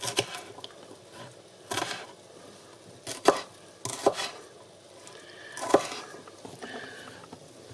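Kitchen knife dicing red bell pepper on a plastic cutting board: a handful of sharp knocks as the blade meets the board, irregularly spaced.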